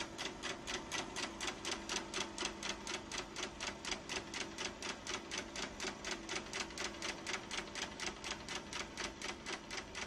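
Film projector running: a rapid, even clatter of the film-advance mechanism, about five or six clicks a second, over a steady motor hum.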